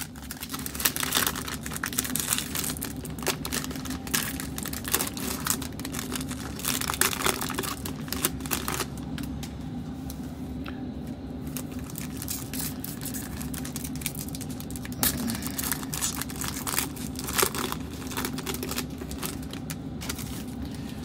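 Foil wrapper of a Panini Prizm basketball card pack crinkling and tearing as it is ripped open by hand. The crackling is dense for the first half, then thins to occasional crinkles.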